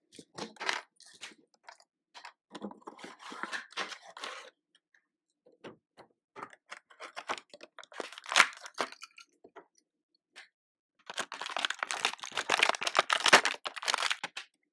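Toy packaging being opened by hand: irregular tearing, crinkling and clicking of cardboard and plastic, with a denser, louder stretch of crinkling and tearing in the last few seconds.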